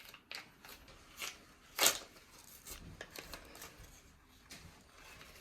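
Small toy packaging being handled and opened: soft rustling and crinkling with scattered light clicks, and one louder rustle about two seconds in.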